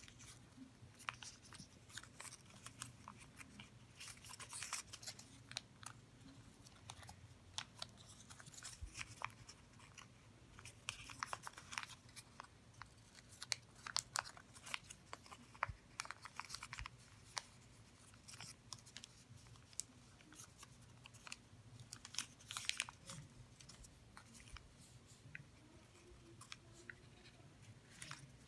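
Origami paper being folded and creased by hand: faint, irregular crinkles and crackles of the paper, coming in clusters.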